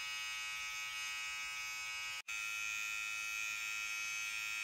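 Electric hair clippers running with a steady buzz as they shave a head down to short stubble. The buzz breaks off for an instant about two seconds in, then carries on.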